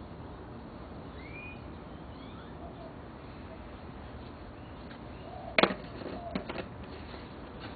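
Steady outdoor background hiss with a few faint bird chirps. About five and a half seconds in comes a sharp knock, followed a moment later by a few lighter clicks.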